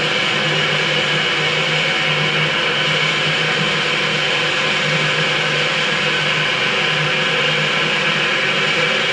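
Dark ambient drone sound effect: a dense, steady, hissing wash with a low hum that pulses slightly, unchanging throughout.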